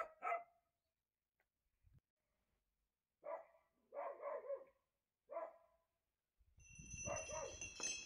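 A dog barking faintly, in short single and double barks spaced a second or two apart. Near the end a steady hiss with high thin tones fades in.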